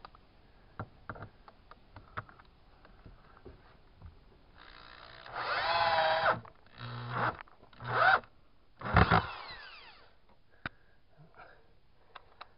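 Cordless drill driving screws into window trim: one run of a couple of seconds with the motor pitch wavering under load, then three short bursts, the last winding down with a falling whine. Small knocks and clicks come between them.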